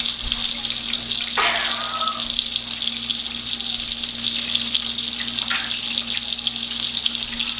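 Steak frying in butter in a hot pan: a steady sizzle with fine crackling spits of fat.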